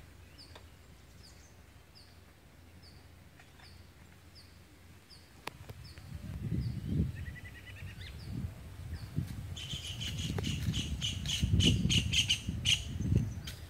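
Small birds calling: a short, high falling note repeated about twice a second, then a quicker run of chirps near the end. Under the calls is a low rumbling noise that grows louder in the second half.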